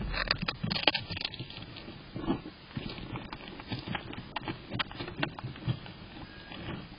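Hedgehog chewing and crunching a snail: a dense run of sharp cracks in the first second or so, then scattered crunches and wet smacking to the end.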